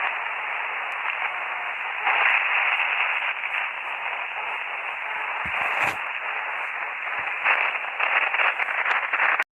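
Radio static: a steady band of hiss with scattered crackles, a spacecraft radio recording of space made audible. It grows louder about two seconds in, turns choppy near the end, and cuts off abruptly.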